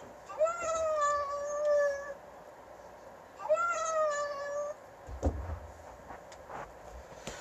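A cat meowing twice, two long meows each over a second long, then a thump about five seconds in.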